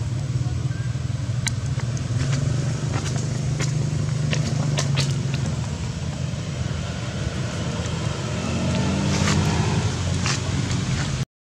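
Motor vehicle engine running close by with a steady low hum. About eight seconds in, an engine rises in pitch as it accelerates. Scattered sharp clicks sound over it.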